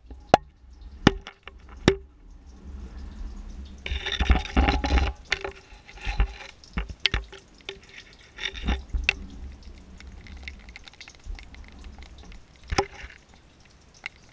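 Water dripping inside a rock-walled well shaft: sharp, separate drips and knocks that ring briefly in the shaft. A denser spell of splashing comes about four to five seconds in.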